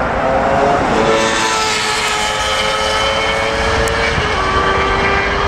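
Airliner jet engines whining with several steady tones over a constant rush. Near the end a sport motorcycle runs past on the road, adding a low rumble and an engine note that slowly falls.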